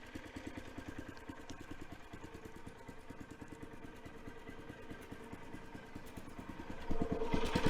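Small gasoline engine of a manual bandsaw sawmill idling with a steady, even putter; it grows louder near the end.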